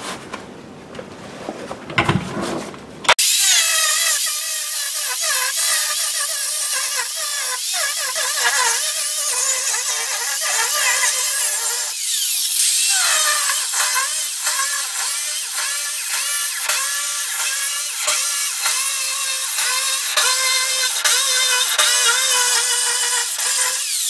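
Corded Ridgid angle grinder with a cut-off wheel starting about three seconds in and cutting through the steel floor of a pickup bed coated in spray-on Line-X bedliner. Its whine wavers up and down as the wheel loads in the cut, with a brief dip about halfway through.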